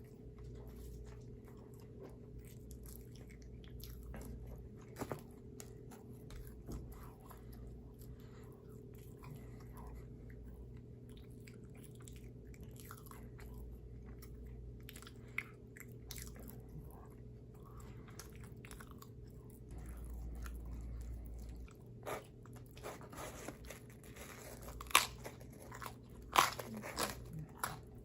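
Close-miked eating: pizza being chewed with many small mouth clicks, and a few louder crunching bites in the last several seconds, over a faint steady hum.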